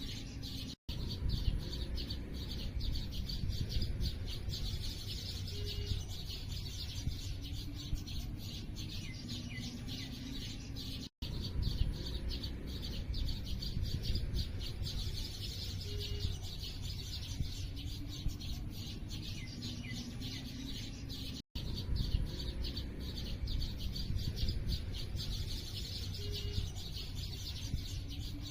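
A chorus of small birds chirping rapidly and continuously over a low steady rumble. The sound cuts out completely for a split second three times, about ten seconds apart, where the recording loops.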